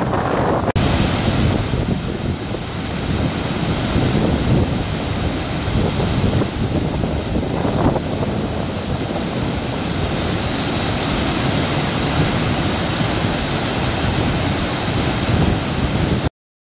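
Bekhal waterfall rushing, a steady heavy roar of falling water, until the sound cuts off suddenly near the end.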